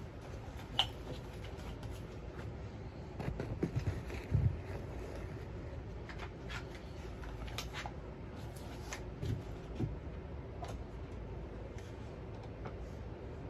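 Scattered light clicks and knocks of a suppressed Windham Weaponry rifle being handled, with a small flurry of knocks about three to four and a half seconds in. No shots are fired.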